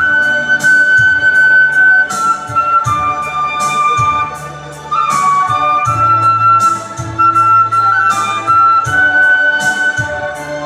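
Electronic keyboard playing a slow melody in a flute-like voice over sustained bass notes, with a steady beat of about two strikes a second.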